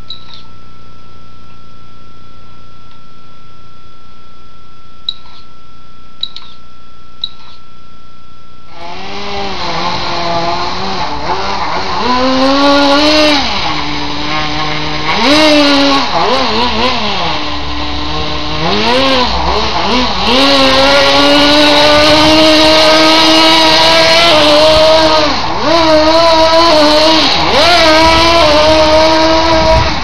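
Radio-controlled Blizzard model's electric drive motor and gears whining as it drives. The pitch rises and falls with the throttle, and later holds high for long runs. The whine starts about nine seconds in; before that there is only a faint steady hum with a few light clicks.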